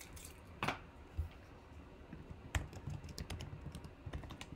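Faint typing on a computer keyboard: a few spaced clicks, then a quick run of keystrokes from about halfway through.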